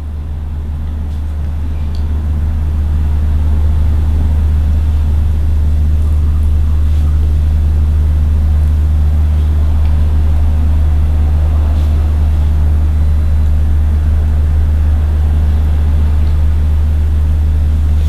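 A steady low hum that swells over the first few seconds, then holds level.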